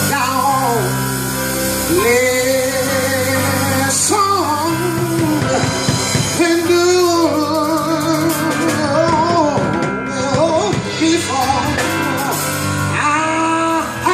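Music: a worship song, a solo voice singing long held notes with vibrato over instrumental accompaniment with steady bass notes.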